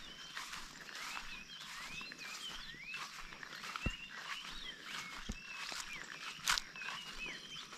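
A chorus of many short chirping calls, each a quick rising-and-falling note, overlapping without pause, with a few soft footsteps and a sharp click about six and a half seconds in.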